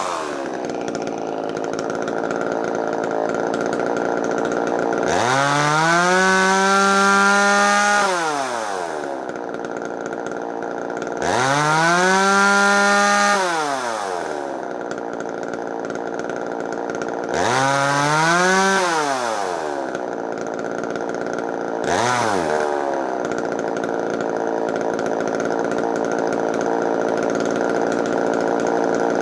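Echo CS-3000 chainsaw's small two-stroke engine idling, revved up to high speed three times, a few seconds each, then blipped once briefly, dropping back to a steady idle each time. It is being test-run while its carburetor is adjusted.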